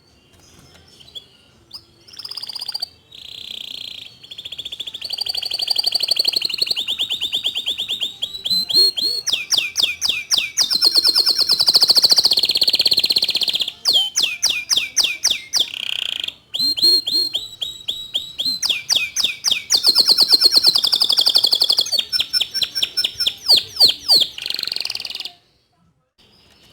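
White domestic canary singing a long song of rapid trills and fast repeated chirping notes, with short breaks between phrases. The song stops suddenly near the end.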